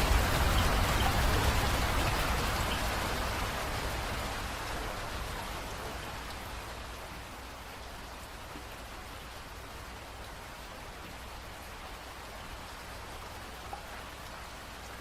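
Rain falling steadily with scattered individual drops, easing off over the first half and then settling into lighter, steady rain.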